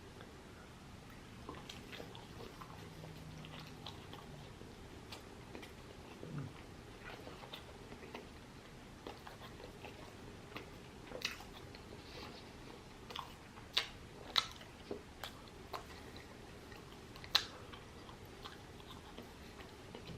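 Close-miked chewing and biting of chicken biryani, with wet mouth clicks and smacks that come sharper and more often in the second half.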